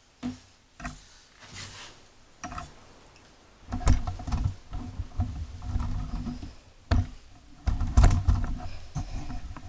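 Handling noises: scattered clicks and knocks, with two louder spells of clattering and low rumbling about four and eight seconds in, as a removed lawn mower blade and its bolt are handled.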